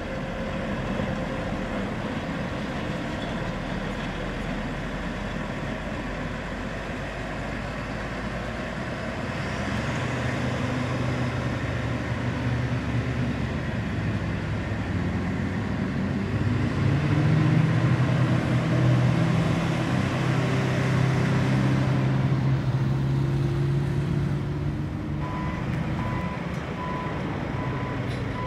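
Diesel engine of a Caterpillar 140H motor grader running while it works the dirt, growing louder in the middle. Near the end its back-up alarm starts beeping steadily.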